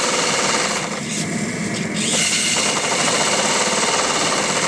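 Twin-cylinder vertical model steam engine running under steam, a fast, even mechanical clatter with exhaust hiss. About a second in, the hiss drops away for about a second, then returns.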